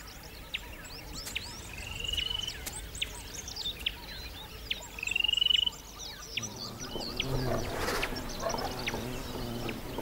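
Wild birds chirping and calling, many short chirps, with two longer trilled whistles, about two and five seconds in, the loudest. From about six seconds in, a low steady hum joins.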